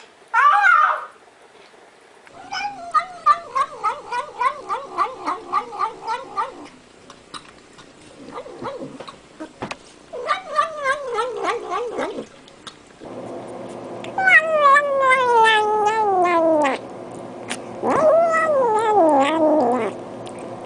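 Cats making the 'nom nom' sounds of eating: a rapid run of short pitched mews, about four a second, then several drawn-out meows that fall in pitch. A steady hum comes in about halfway through.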